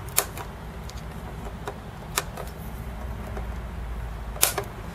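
A few light clicks and taps of a soldering iron and tools against a circuit board, the loudest near the end, over a steady low hum.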